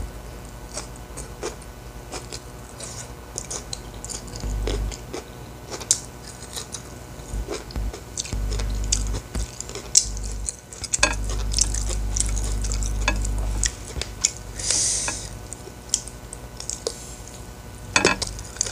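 Close-miked eating by hand: chewing and wet mouth clicks and crackles as a mouthful of rice with stink bean and mushroom sambal is eaten, with light clinks of fingers or food against the plate. A low hum comes and goes underneath.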